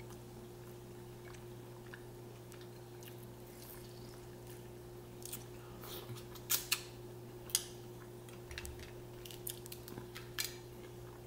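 A person chewing mussels dipped in butter sauce, with scattered short wet clicks and smacks, loudest a little past halfway, over a steady low hum.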